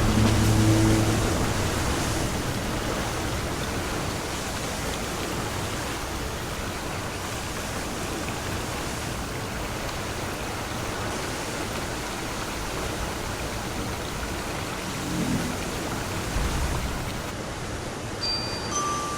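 A steady rushing noise with no clear pitch. Low held music notes fade out in the first second, and high chime-like notes begin near the end.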